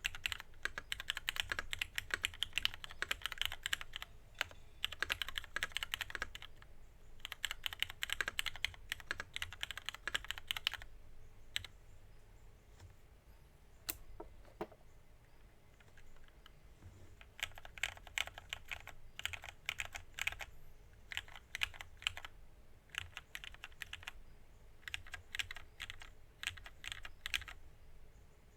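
Typing on a mechanical keyboard with lubed and filmed Hyperglide Black linear switches on an aluminium plate and JTK Emerald keycaps. Runs of fast keystrokes alternate with pauses of a few slow, separate key presses about midway.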